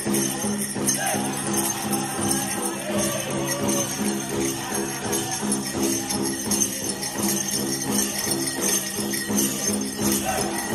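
Powwow drum song: a big drum struck in a steady, even beat under a group of singers, with bells on the dancers' regalia jingling over it.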